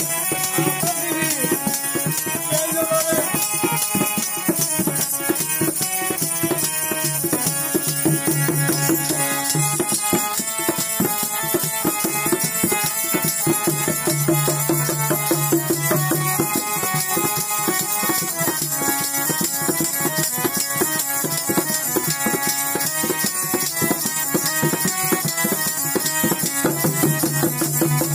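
Live folk music: a harmonium playing melody and sustained chords, with a hand-played barrel drum and a shaker rattling in a steady rhythm throughout.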